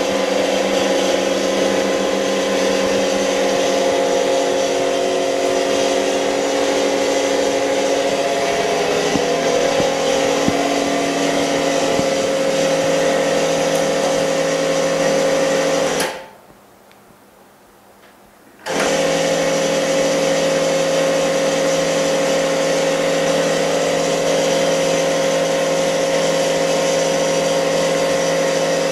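Steady electric hum of a screen repair machine's motor or pump running, with several fixed pitches; it stops about sixteen seconds in and starts up again about two and a half seconds later.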